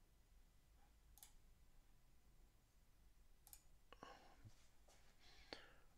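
Near silence broken by about four faint, short computer mouse clicks.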